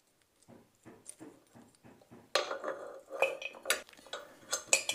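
Small clicks and rattles of plastic ceiling-fan parts and wire connectors being handled and fitted together by hand. It is faint at first and gets busier from about two seconds in.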